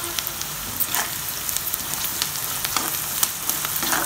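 Chopped onions and tempering spices (dried red chillies, curry leaves) frying in hot oil, a steady sizzle with scattered small pops, and a spatula stirring through them now and then.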